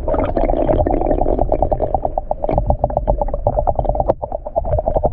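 Underwater sound with the microphone submerged in calm lagoon water: a muffled, dense rush broken by rapid crackling clicks.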